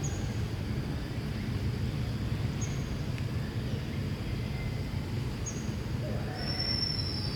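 Outdoor background noise: a steady low rumble with three short high chirps a few seconds apart, and a thin high whistle that starts near the end.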